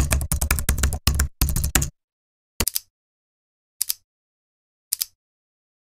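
Keyboard typing sound effect: a quick run of key clacks for about two seconds, then three single keystrokes roughly a second apart.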